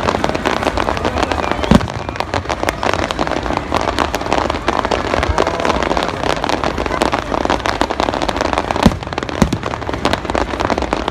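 Aerial fireworks display: a dense, continuous crackle of many small bursts, with two sharp booms of shells going off about 2 seconds in and about 9 seconds in.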